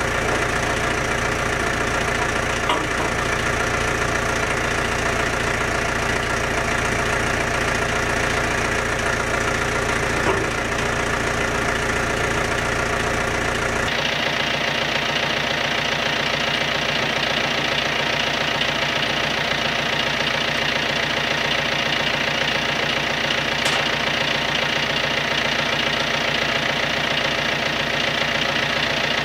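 John Deere tractor engine idling steadily. Its sound changes abruptly about halfway through, with less low rumble and more high hum.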